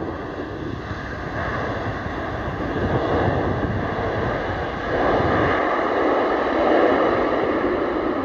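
Boeing 777-300ER's twin GE90 turbofan engines running as the airliner rolls along the runway after landing: a steady jet whine over a loud rushing noise. The sound swells about five seconds in.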